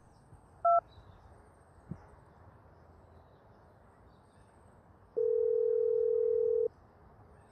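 A short electronic telephone beep about a second in. Then a phone ringing tone, a steady low buzzing tone that sounds once for about a second and a half near the end: an outgoing call ringing at the other end.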